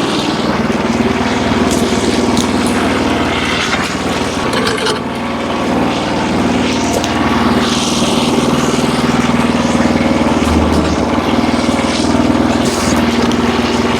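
Engine running steadily at a constant pitch, with a rough hiss above it that comes and goes.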